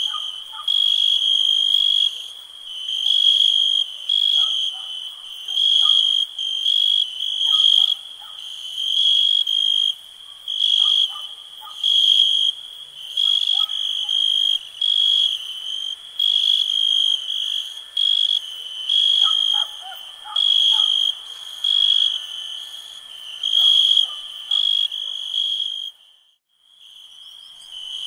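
Night ambience of crickets chirping in steady pulses about once a second, with fainter, lower animal calls underneath. The sound cuts out briefly about two seconds before the end, then resumes.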